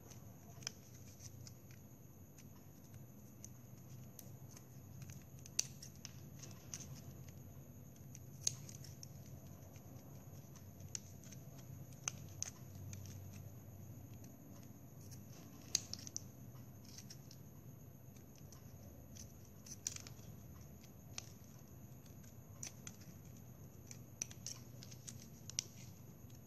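Small scissors snipping the slit plastic drinking-straw fronds of a craft palm tree: faint, sharp snips at irregular intervals, about one every second or two.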